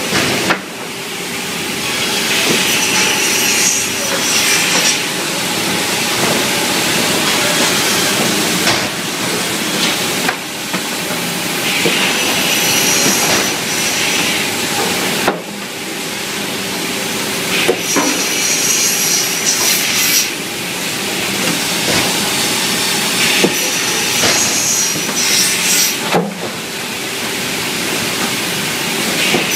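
Automatic cross-cut saw machine for timber running continuously, a steady hum and hiss broken every few seconds by the blade cutting through wood, with scattered knocks of boards.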